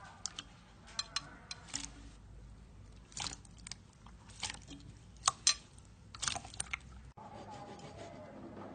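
Jiggly water slime being squished and poked by hand, giving irregular sharp clicks and wet pops, the loudest a quick pair about five seconds in.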